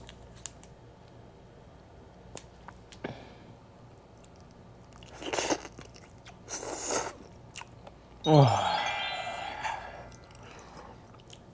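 Biting and chewing into a stir-fried giant freshwater prawn (Thai prawn), with a couple of crunches about five and seven seconds in. About eight seconds in comes a loud, short sound that falls in pitch.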